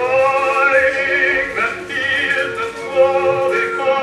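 Old film soundtrack music: a voice singing a held operatic melody with vibrato over an orchestra.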